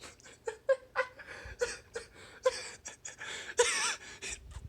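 A man laughing in disbelief: a run of short, breathy bursts of laughter with a higher wavering squeal about three and a half seconds in.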